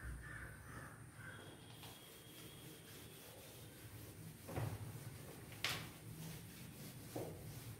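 Blackboard duster wiping chalk off a blackboard in a few short sweeping strokes, about four and a half, nearly six and seven seconds in. Crows caw faintly at the start.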